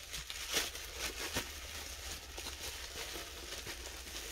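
Faint handling sounds: plastic wrapping crinkling, with a few light clicks.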